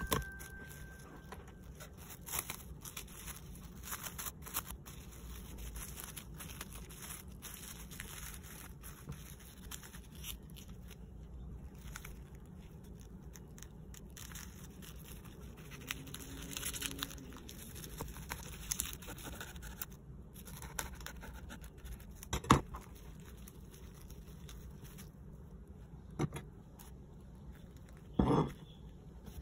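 Cling film crinkling and scraping as a knife cuts through a film-wrapped folded rice ball, with scattered faint clicks. A sharp knock about two-thirds of the way in and two more knocks near the end.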